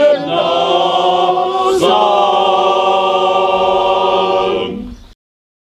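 Male-voice choir singing a cappella, holding the song's closing chords. The chord changes just under two seconds in, and the final chord is held until it fades out about five seconds in.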